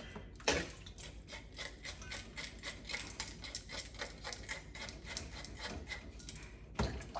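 Fish scales being scraped off a parrotfish or snapper in quick, repeated scraping strokes, with a knock about half a second in and another near the end.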